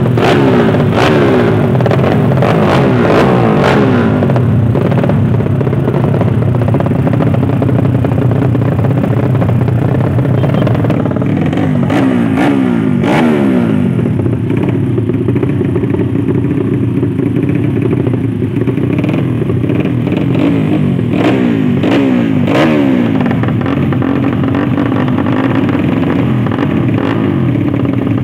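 Drag-race motorcycle engines revving hard in repeated bursts, their pitch swinging up and down several times, with scattered sharp clacks.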